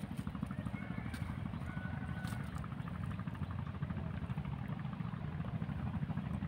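A small engine running steadily, a low rapid chugging hum.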